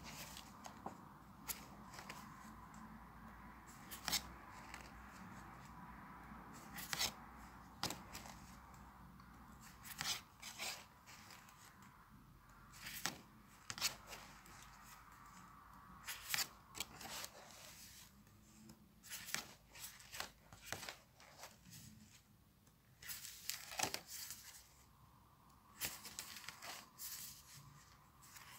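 Paper pages of a spiral-bound sketchbook being turned by hand: irregular sharp rustles and flaps as each page is lifted and let fall.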